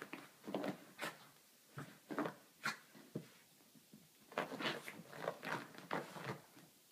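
A small dog rolling and squirming on its back on a carpet: a string of short, irregular scuffing and rubbing sounds as its body and paws scrub against the pile.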